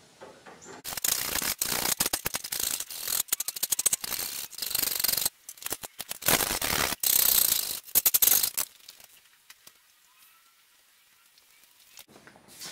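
Hand file rasping across a steel cutlass guard clamped in a bench vise: rapid scraping strokes for about four seconds, a short break, then about two more seconds of strokes before it stops.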